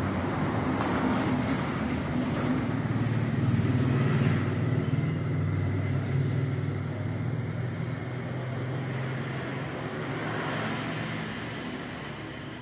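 A motor vehicle engine running with a steady low hum, slowly fading away over the second half.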